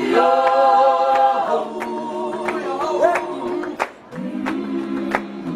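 A group of voices singing together without instruments, opening on a strong held chord, then moving to a lower chord after a brief dip near the end. Sharp claps sound at a fairly regular pace.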